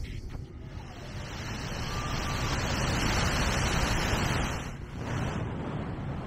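Beach ambience: a rushing noise of wind and surf that swells over a few seconds and eases off near the end, with a brief faint tone about two seconds in.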